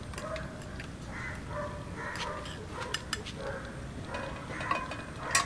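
Metal spoon stirring passion fruit juice in a drinking glass, clinking against the glass in scattered light taps, several of them close together about three seconds in.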